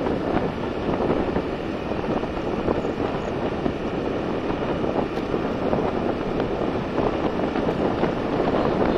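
Wind rushing over the microphone as it travels along an open road, a steady noise with the sound of the moving vehicle beneath it.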